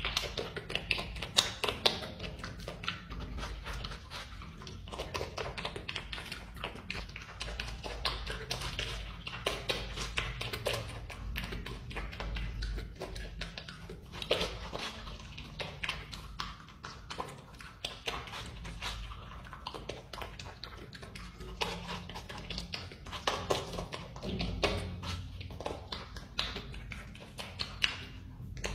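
A marmot biting into and chewing watermelon flesh close to the microphone: many quick, irregular crunching clicks and smacks, with no steady rhythm.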